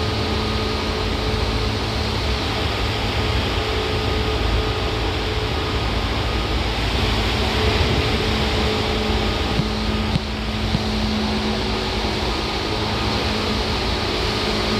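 Seibu old 2000 series electric train running steadily: constant rumble of wheels on rail with a steady motor and gear hum. A couple of light knocks about ten seconds in.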